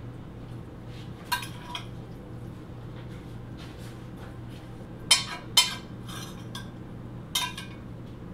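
A metal spoon clinking and scraping against glass dishes while macaroni and cheese is spooned from a glass baking dish into a glass pumpkin-shaped bowl. There are a few sharp clinks, the loudest two about five seconds in.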